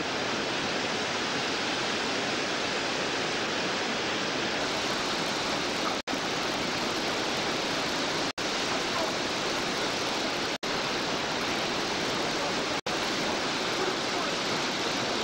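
Steady rushing roar of whitewater rapids on a mountain river. The sound cuts out for an instant four times, about two seconds apart.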